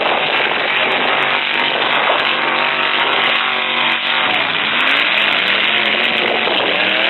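Full-size demolition derby trucks' engines revving loudly, several running at once. One engine's pitch holds, drops about four seconds in, then climbs again.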